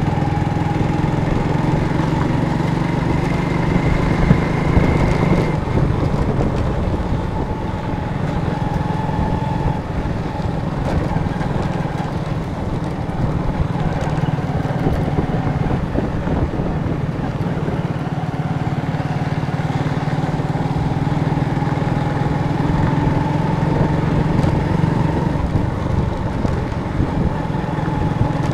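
Motorcycle engine running steadily at cruising speed, heard from the rider's own bike on a rough dirt track, with a low rumble under it.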